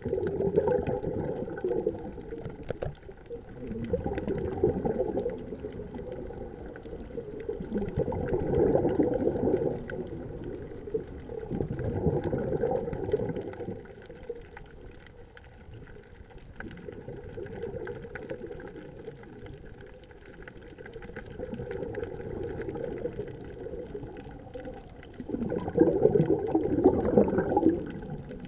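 Scuba diver's exhaled bubbles bursting from the regulator exhaust, heard underwater. The gurgling bubble bursts last a second or two and come about every four seconds with each breath, the loudest near the end.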